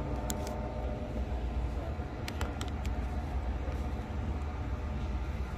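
Model trains running on the layout track: a steady low rumble, with a few sharp clicks near the start and a short run of clicks about two and a half seconds in.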